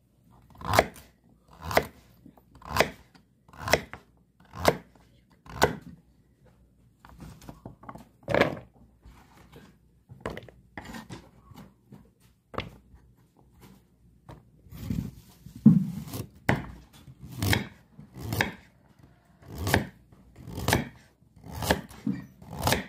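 A knife slicing peeled carrots into rounds on a wooden cutting board, each cut ending in a sharp knock on the board, about one cut a second. There is a quieter, sparser stretch in the middle before the steady cutting resumes.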